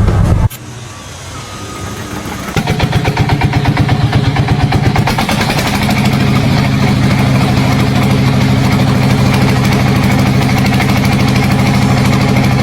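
An engine comes in about two and a half seconds in with a fast, even pulse, then settles into a steady run.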